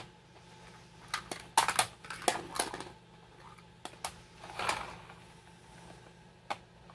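Hard plastic toy truck parts clicking and clattering as they are handled: a run of sharp clicks and knocks between about one and three seconds in, a few more later, and a single click near the end.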